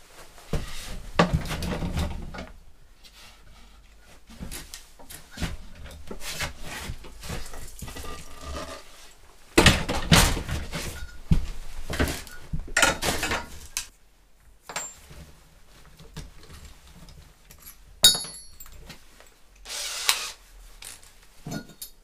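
Workshop handling noise: irregular knocks, thuds and clatter of metal tube pieces and parts being picked up, laid on the cart and moved about, loudest in the middle, with a sharp click near the end.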